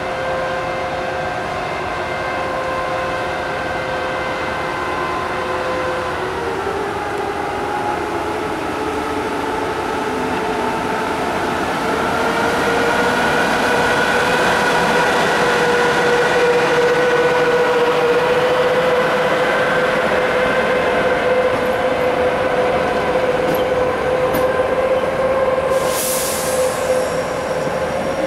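EP2K passenger diesel locomotive pulling away with its train: the engine hums in steady tones that slide down about seven seconds in, then rise and grow louder as the locomotive passes close by. Its passenger cars then roll past, with a short hiss and faint wheel clicks near the end.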